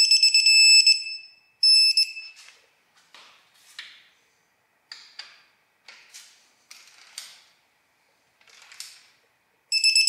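Digital torque wrench beeping a steady high-pitched alert as a 2JZ head stud reaches its 33 ft-lb target torque: a long beep at the start, a short one about two seconds in, and another near the end. Between the beeps come short metallic clicks and clinks from the wrench and socket.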